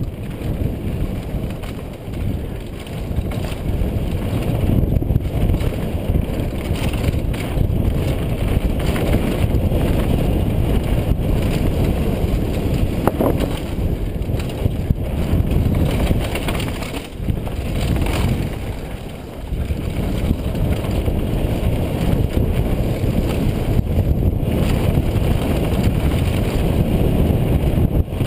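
Wind buffeting the helmet camera's microphone during a fast downhill mountain-bike descent on a dirt trail, a steady low rumble mixed with tyre noise and scattered knocks and rattles from the bike over bumps.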